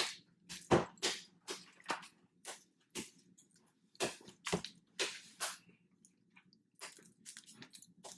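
Slime being squeezed and pulled by hand, making short irregular wet squelches, about one or two a second.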